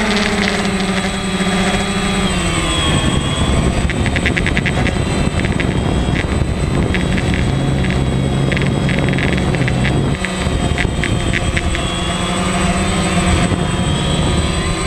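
DJI Phantom quadcopter's motors and propellers buzzing steadily, heard close up from on board, the pitch dropping and rising as the drone is flown.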